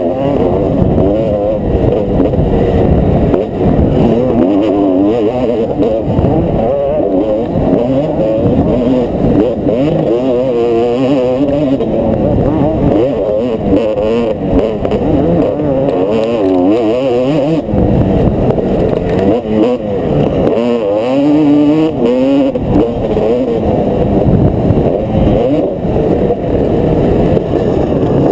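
Motocross dirt bike engine being ridden hard, its pitch climbing and dropping again and again as the throttle is worked through corners and gear changes. It is heard close up from the rider's helmet, with a rough rumble of wind on the microphone underneath.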